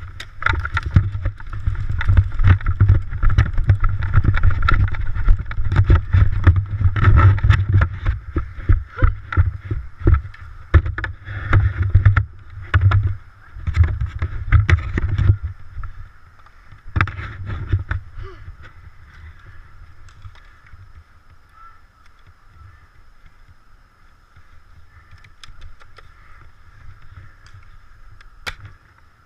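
Heavy, irregular thumping, knocking and rustling on a worn GoPro action camera as the wearer runs, loud for about fifteen seconds, with a short burst again a little later, then much quieter.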